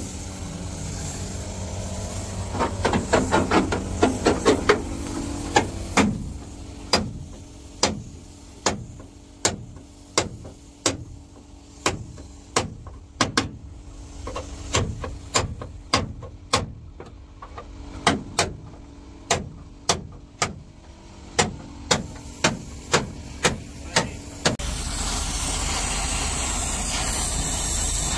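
Steady hammer blows on a truck cab's rusted sheet-steel floor, about one and a half strikes a second, with a quick flurry of lighter taps early on. Near the end the blows stop and a steady hiss takes over.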